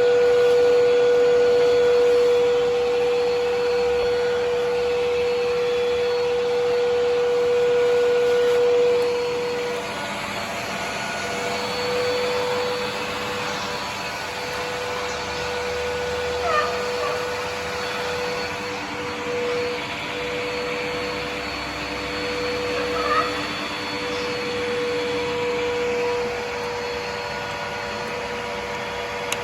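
Zepter vacuum cleaner running with a steady motor whine. About ten seconds in it becomes somewhat quieter, and two short rising squeaks come through later on.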